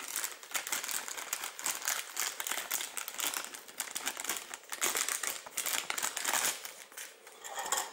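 Clear plastic bag crinkling and rustling as hands open it and work a set of four-blade drone propellers out of it, easing off near the end.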